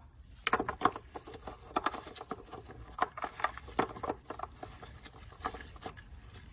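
Plastic oil filler cap being screwed by a gloved hand onto the threaded filler neck of a Honda engine's valve cover: a run of irregular clicks and light scrapes starting about half a second in.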